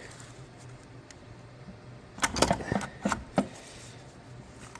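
Light metallic clicks and knocks from a 6L80 transmission's valve body being lifted off and handled, several in quick succession a little past the middle, over a faint low hum.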